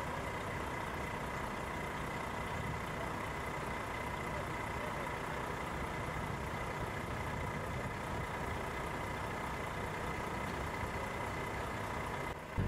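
Heavy diesel engine running steadily at idle, with a thin steady whine above it; it breaks off near the end.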